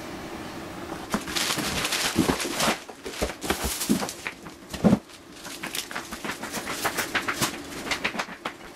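Clear plastic wrapping crinkling and a cardboard box scraping and bumping while the wrapped scooter is pulled out, with a few dull thumps in the middle. A faint steady hum sits underneath at the start.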